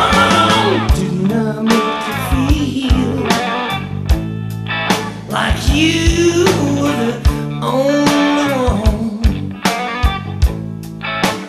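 Psychedelic rock band recording: electric guitar and drums playing, with a lead line that bends up and down in pitch over the beat.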